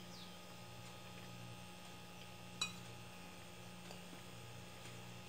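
Quiet room with a steady low hum, broken once about two and a half seconds in by a single short sharp click, like a metal fork touching a plate.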